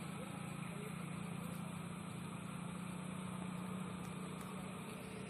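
A steady low motor hum, with a thin, even high hiss above it.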